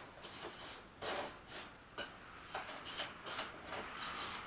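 Hand wire brush scrubbing welded steel in short, uneven strokes, scouring weld spatter beads off the weld.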